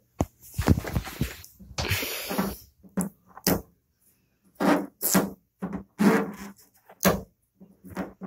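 Fingernails scraping and picking an old black plastic stripe decal off a car's painted hood: an irregular run of short scratches, with a longer rasping scrape about two seconds in.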